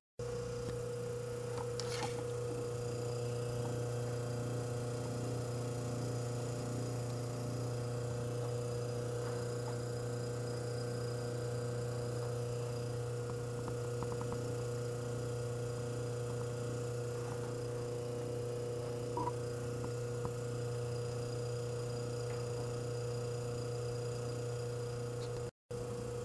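Frigidaire Meter-Miser refrigerator compressor running with a steady low hum on a test refrigerant charge, cooling normally with its current settled at about 1 amp.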